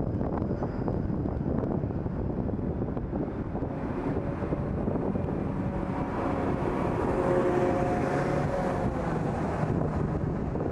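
Street traffic noise with wind buffeting the microphone as a TTC Flexity Outlook low-floor streetcar approaches along the track. A faint steady whine comes up in the middle.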